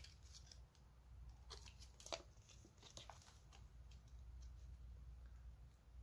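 Faint crinkling and light clicks of clear plastic coin sleeves and capsules being handled, with a sharper click about two seconds in.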